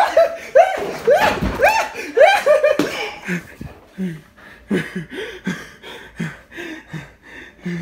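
A person laughing hard: quick high-pitched bursts of laughter for the first three seconds, then lower, breathier laughs about every half second.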